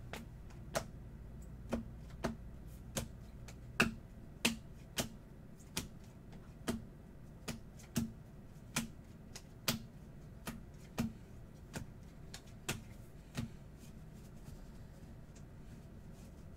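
Bowman Chrome baseball cards being flipped through one at a time, each card giving a sharp click: a steady run of clicks, a bit under two a second, that stops a few seconds before the end.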